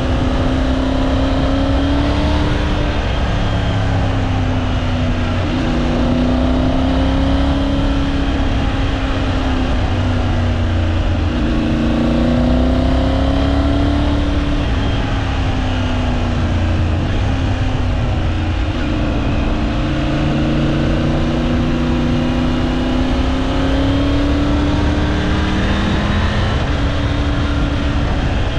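Triumph Tiger 900 Rally Pro motorcycle's three-cylinder engine running under way. Its note rises and falls smoothly every few seconds as the throttle opens and closes through a run of bends, over a steady rush of wind and road noise.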